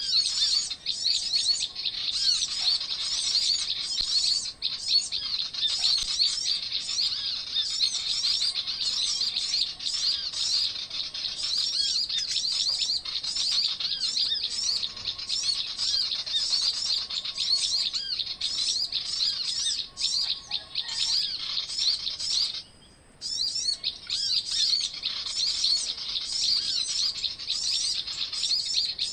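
Many small birds chirping and trilling rapidly and without pause, high-pitched. The chorus cuts out suddenly for about half a second roughly three quarters of the way through, then resumes.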